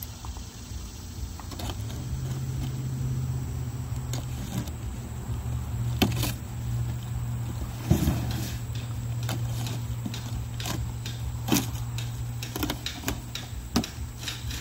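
Cardboard box being cut open and handled: scattered sharp clicks and scrapes, the loudest about eight seconds in, over a steady low hum that sets in about two seconds in.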